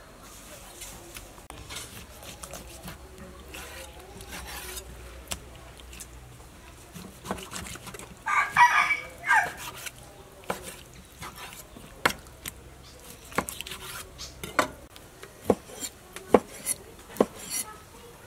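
Knife slicing raw pork on a wooden cutting board, each cut ending in a sharp tap on the board, about one a second in the second half. A rooster crows once about eight seconds in.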